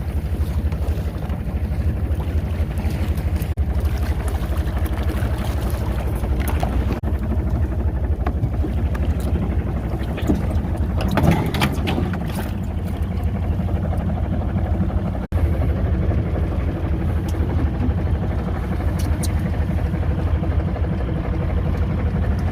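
A boat's engine running steadily as a low hum, with a momentary break about fifteen seconds in.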